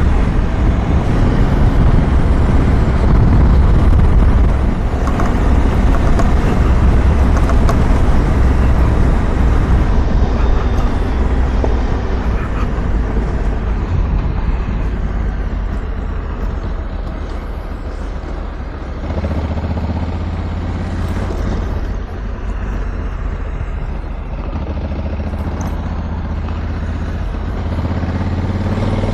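Honda Africa Twin's parallel-twin engine running steadily as the motorcycle rides along a dirt road. Tyre and wind noise run underneath, and the engine note changes about two-thirds of the way through.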